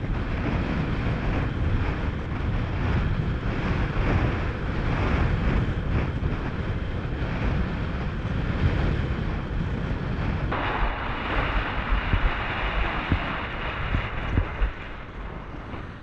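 Wind buffeting the camera microphone over rushing water at planing speed on open water. About two-thirds of the way through the sound changes abruptly to a brighter, hissier rush of spray, then fades near the end.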